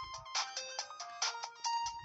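HTC Wildfire S phone ringtone playing from the phone's speaker: a quick melody of bright, struck-sounding notes, several a second.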